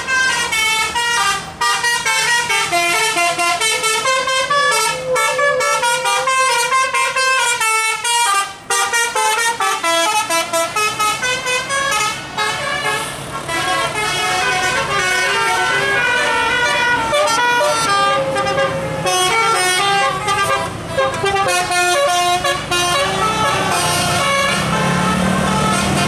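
Bus telolet horn: a multi-trumpet musical air horn playing a fast melody of short stepped notes, several pitches at once, almost without a break and with a brief pause about eight seconds in. A low steady drone joins underneath near the end.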